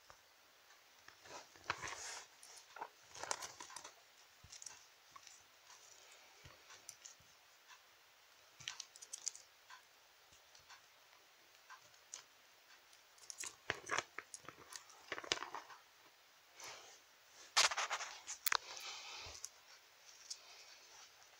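Scattered light taps, scrapes and rustles of small plastic toy figures being handled and moved about on a toy set, with a louder flurry of handling about three-quarters of the way through.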